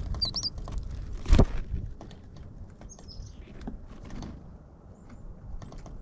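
Small songbirds giving a few short, high chirps at a seed feeder, over scattered clicks and taps of birds pecking seed on the feeder platform. A loud sharp knock about a second and a half in.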